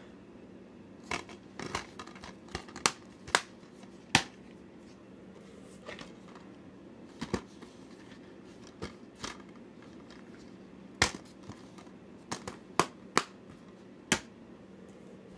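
Plastic DVD cases being handled: scattered sharp clicks and knocks at irregular intervals as a case is snapped shut and cases are moved and set down, with faint handling rustle between.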